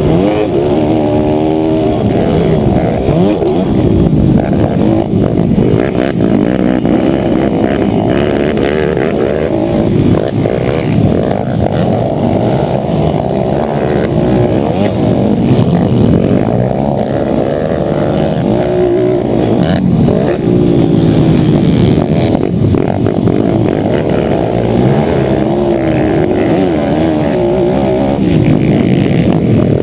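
Motocross dirt bike engine revving hard and close, heard from on board the bike. Its pitch climbs and drops again and again as the rider accelerates, shifts and backs off through the turns.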